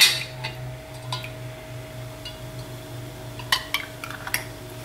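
Metal screw-on canning lids and glass jars clinking as they are handled: one sharp clink at the start, then a quick cluster of small clinks near the end, over a faint steady hum.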